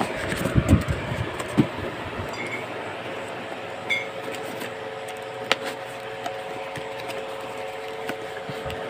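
Corrugated cardboard packaging being handled and opened: rustling and a few dull knocks of cardboard in the first two seconds, then occasional sharp clicks as a ceramic mug is worked out of its box, over a faint steady hum.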